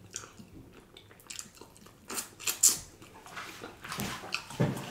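Close-miked eating sounds: wet lip smacks and sucking as meat is eaten off the fingers, several short sharp smacks, with a louder, lower mouth sound near the end.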